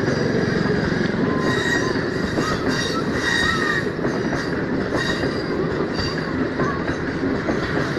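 Green Line express passenger coaches rolling past on curved track. A steady rumble of wheels runs throughout, with high wheel squeal on the curve rising and falling, strongest about two to four seconds in.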